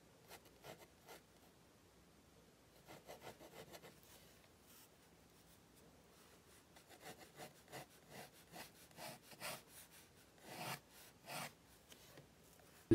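Pen drawing on paper: faint scratching in short strokes, in a few clusters with pauses in between.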